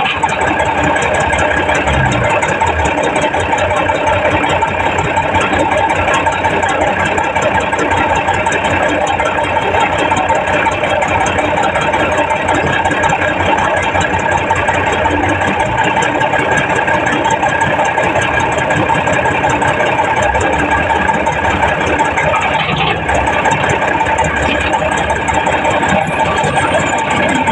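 Heavy diesel engines of earth-moving machinery running steadily, with a constant mechanical drone and whine and no marked revving or stops.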